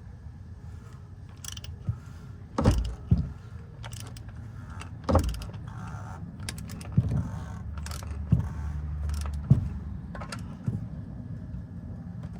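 Socket and extension tightening an oil filter housing cap, with several sharp clicks and knocks at irregular intervals; it is tightened until it clicks, the sign that it is done.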